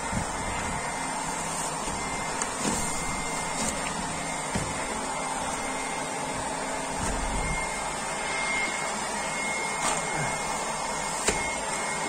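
Hair dryer running steadily with a thin high whine, blowing hot air to soften interior vinyl film on a door frame. A few faint crackles come from the film as it is pulled away.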